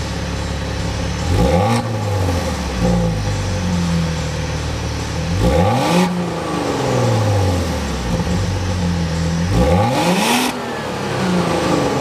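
Maserati Ghibli 3.0-litre turbo V6 idling and blipped three times through a Fi Exhaust valvetronic cat-back with the valves closed. Each rev rises quickly and falls back to idle over about two seconds: about a second in, around five and a half seconds, and near ten seconds.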